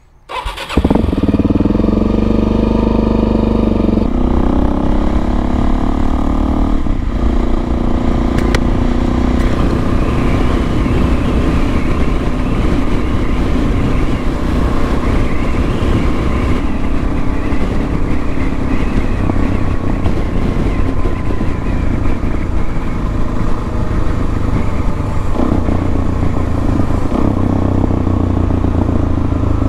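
Suzuki DRZ400S single-cylinder four-stroke engine running under way as the bike is ridden. Its note steps down in pitch twice in the first seven seconds and shifts again near the end.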